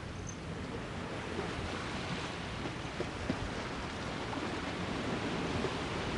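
Sea waves washing onto the shore: a steady rushing surf noise with some wind.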